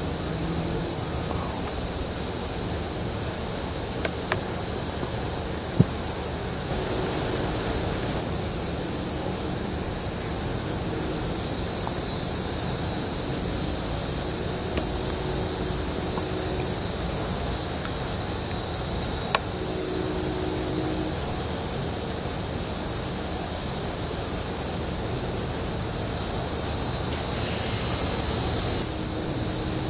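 Insects trilling steadily at a high pitch, over a steady low background rumble, with two sharp clicks, about six seconds in and about nineteen seconds in.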